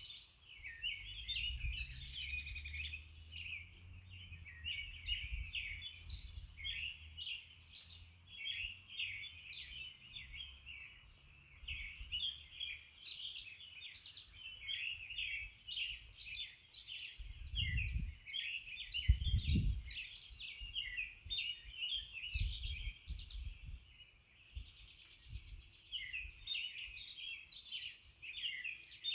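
Many birds chirping and twittering in a dense, unbroken chorus, with a few dull low thumps about two-thirds of the way through.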